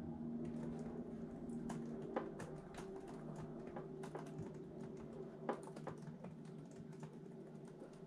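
Irregular sharp clicks and taps, about a dozen, from a northern cardinal feeding at a clear plastic window feeder: its beak picks at and cracks sunflower seeds against the tray. A steady low hum runs underneath.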